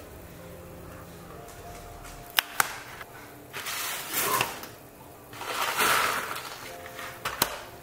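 A box of dry spaghetti being opened and handled: a few sharp clicks and taps, and rustling swishes as the pasta is pulled out of its packaging.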